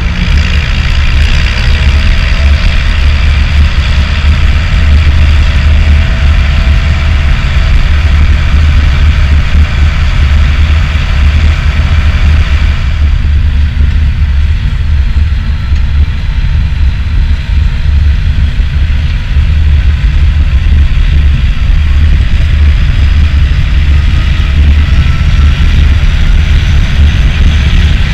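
International Harvester tractor travelling down the road, its engine running over a loud, steady low rumble. The higher part of the engine sound drops back about halfway through.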